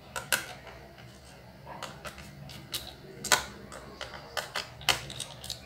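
Irregular sharp clicks and taps of small plastic and metal laptop parts being handled and pressed into place in an open laptop chassis, the loudest click a little past halfway.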